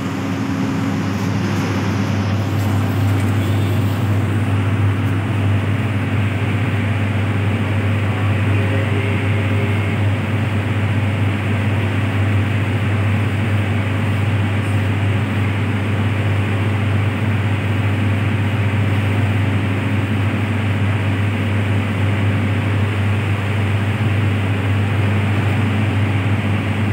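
Steady low drone of a running machine, unchanging throughout.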